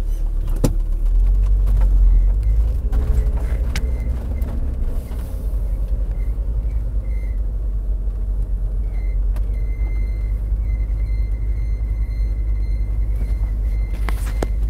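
Cabin noise of a 1994 VW T4 2.5 Syncro van driving: steady low engine and road rumble with a few knocks. From about seven seconds in, a faint thin high whine comes and goes.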